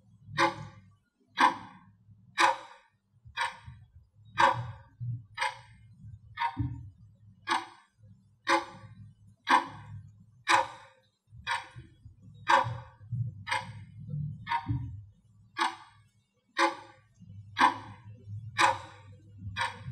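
Clock ticking sound effect counting off thinking time: steady, evenly spaced ticks over a faint low hum.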